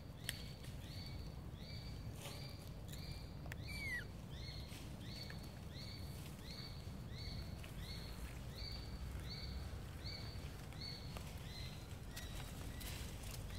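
Faint high chirps from a calling animal, repeating evenly about twice a second and stopping about twelve seconds in. A single short falling squeal comes about four seconds in.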